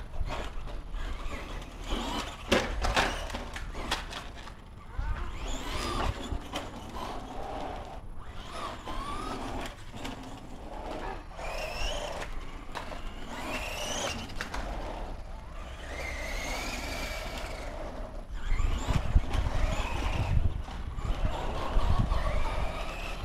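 Radio-controlled trucks driving on asphalt, their motors whining up and down in pitch with the throttle. A low rumble comes in for the last few seconds.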